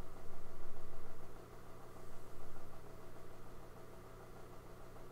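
Steady low hum of room noise with no speech, a little louder in the first second and a half.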